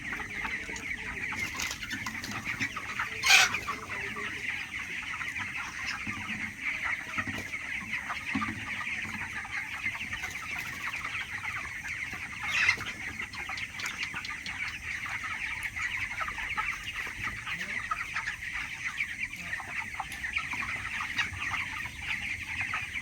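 Large flock of 26-day-old chickens in a poultry house, a steady mass of overlapping high cheeps and clucks. Two brief, louder sharp sounds stand out, one about three seconds in and one about thirteen seconds in.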